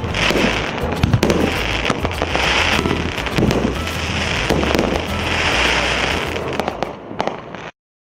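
1.2-inch consumer firework cake (a 19-shot battery) firing its last shots: dense crackling and popping of breaking shells, with a new wave of crackle about every second and a half. It thins out near the end, and the sound then cuts off abruptly.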